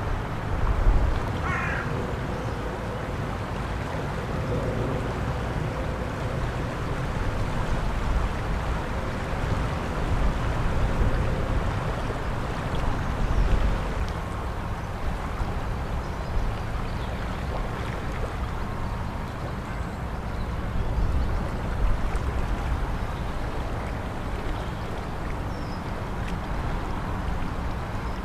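Steady rushing of a flooded river, with a heavy low rumble. A short high call sounds about one and a half seconds in.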